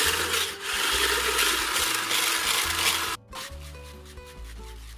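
Electric hand blender with a whisk attachment beating egg whites to a froth in a bowl, the whisk scraping against the bowl, stopping abruptly about three seconds in. Soft background music with low notes runs underneath and carries on after.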